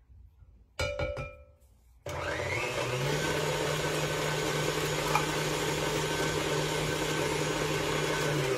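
A short ringing clink about a second in, then an electric kitchen mixer starts about two seconds in, rises in pitch as it comes up to speed and runs at a steady whir while beating a ginger cake batter, stopping near the end.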